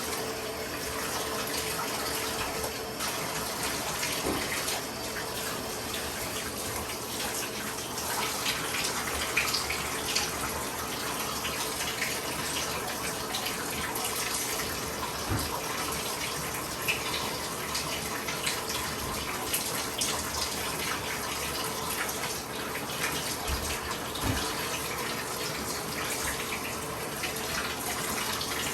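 Bathtub tap running steadily, water pouring into the tub, with small splashes and knocks now and then.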